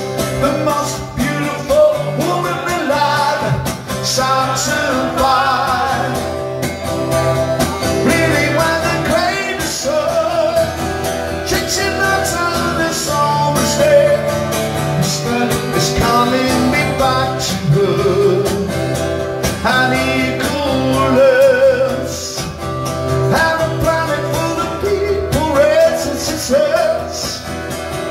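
A man singing a song while strumming a steel-string Takamine acoustic guitar, performed live.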